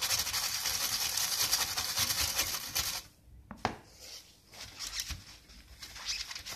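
Cleaning a freshly soldered circuit board: a steady scrubbing noise for about three seconds, then softer scattered rubbing and a few small clicks.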